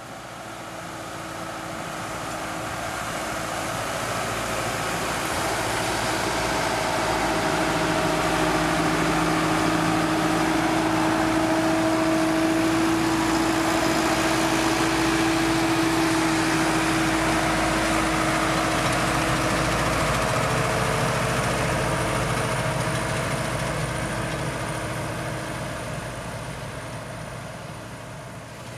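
Sonalika 110 HP 4WD tractor's diesel engine running steadily under load while pulling a mouldboard plough. It fades up over the first few seconds and fades away near the end.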